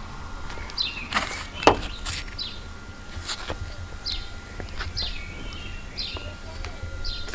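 A bird calling repeatedly, short falling chirps about once a second, over a low steady rumble. A few sharp knocks come between about one and three and a half seconds in, the loudest about a second and a half in.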